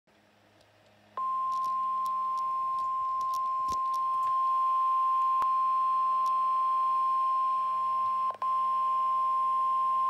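The NOAA Weather Radio warning alarm, a single steady 1050 Hz tone, sounding from a Midland weather alert radio's speaker during the Required Weekly Test. It starts about a second in and holds for about nine seconds, with a momentary break near the end.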